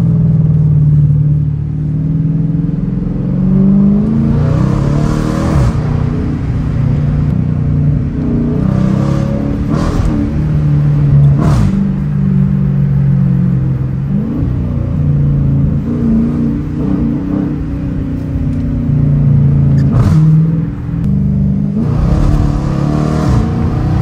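Dodge Challenger R/T's 5.7-litre (345 cu in) Hemi V8 heard from inside the cabin with the windows cracked. The engine note rises and falls in pitch several times as the car accelerates and shifts through the gears.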